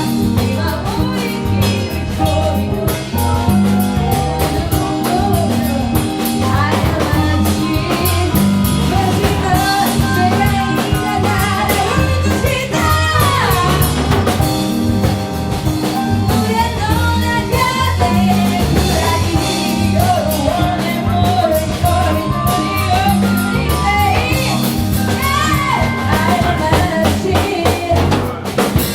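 A band playing a rock-style song with a singer, drum kit and guitar over a steady beat; the music stops right at the end.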